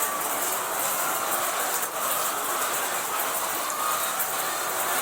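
Automatic chain feeder in a poultry house running steadily, with a constant mechanical rattle.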